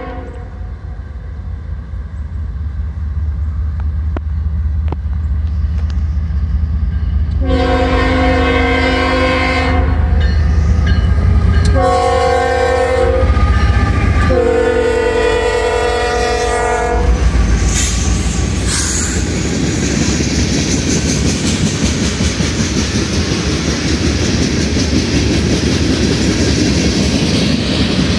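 Norfolk Southern freight train passing: its diesel locomotives rumble as they approach and sound the horn in three blasts, the last one the longest. After the locomotives go by, the train cars roll past with a steady rush of wheel noise and clickety-clack over the rail joints.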